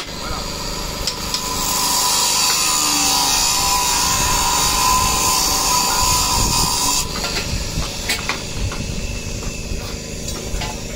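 A power tool runs steadily for about five seconds and then stops, followed by scattered light knocks.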